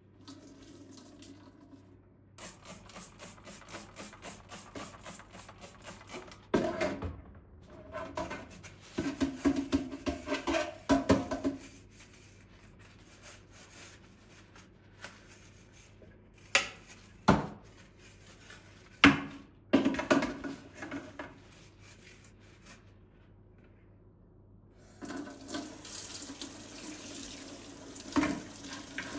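Water tap running into a sink in two stretches, with several sharp knocks and clatters of things being handled in between.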